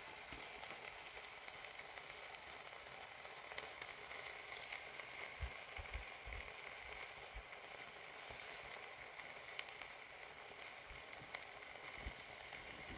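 Faint steady sizzling of beef steak pieces cooking in their own juice in a pot, with scattered small pops.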